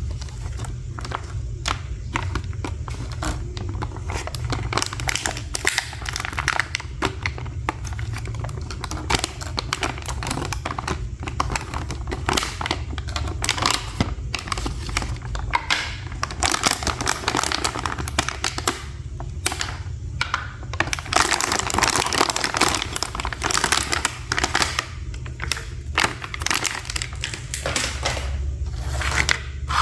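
Toy packaging crinkling and rustling, with small toy pieces clicking and tapping as they are handled during an unboxing, busiest a little past the middle.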